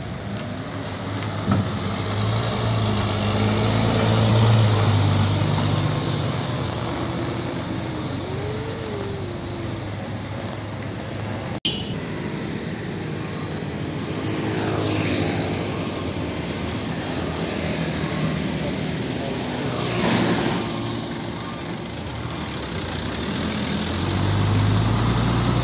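UD Nissan PK-series diesel trucks driving past: first a fuel tanker's engine running with a low hum that rises in pitch as it pulls away, then, after a cut, a tractor unit hauling a container, with passing traffic noise and its engine running close by near the end.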